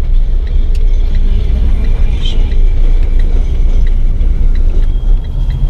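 Steady low rumble of a car driving in city traffic, heard from inside the cabin.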